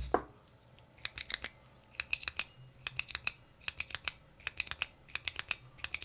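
Push button of a metal-bodied retractable ballpoint pen being clicked over and over. The sharp clicks come in quick pairs of press and release, in short runs every second or so.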